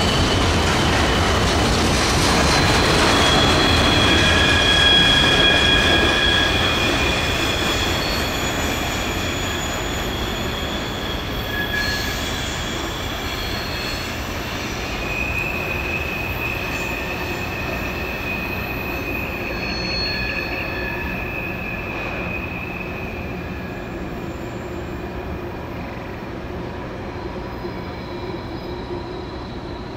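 Tail end of a CSX manifest freight train rolling away, its steel wheels squealing in several steady high pitches that come and go over the low rumble of the cars. The sound fades as the train recedes.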